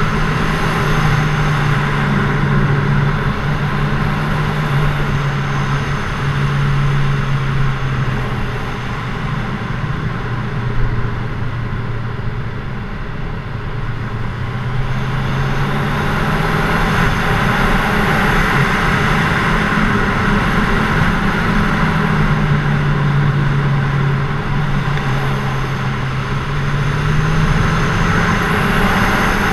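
Kawasaki Z1000SX's inline-four engine running under way, its pitch dropping and climbing again several times as the throttle is eased and opened through the bends. Wind and road noise rush steadily underneath.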